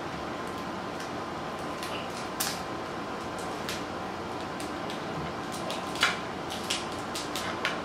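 Crab leg shells cracking and snapping as they are broken apart by hand: a few sharp cracks, the loudest about two and a half and six seconds in, then a quick run of smaller clicks near the end, over a steady low hiss.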